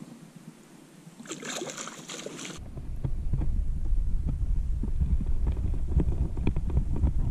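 Water splashing for about a second as a small trout is scooped into a landing net at the lake's edge. About two and a half seconds in, a loud low buffeting rumble with soft thumps starts abruptly on the camera microphone and stays as the loudest sound.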